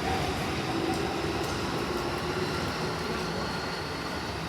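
Keikyu Line electric train moving at the station platform: a steady rumble, with a faint humming tone from about one second in that fades a second and a half later.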